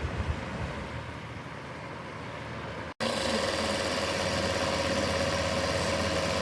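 Electric fan heater running: a steady whir of fan noise. It is broken by a sudden cut about three seconds in, after which it is louder and steadier, with a hum.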